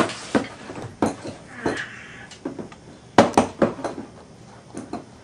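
Irregular clatter of objects being handled: a series of sharp knocks and clinks, loudest about three seconds in, with a short scrape about two seconds in.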